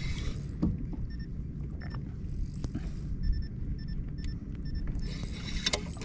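Spinning reel being cranked against a hooked fish, with faint short high ticks from the reel over a steady low rumble of wind and water on the microphone; a brief hiss comes near the end.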